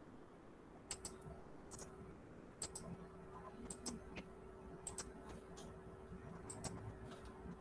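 Faint, sharp clicks at a computer, mostly in close pairs, coming irregularly from about a second in, over a faint steady hum.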